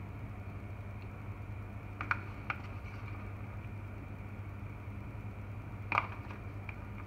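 A few light clicks and taps from hands and a plastic tub while shredded mozzarella is sprinkled over a pizza on a metal tray. Two clicks come about two seconds in and the loudest about six seconds in, over a steady low hum.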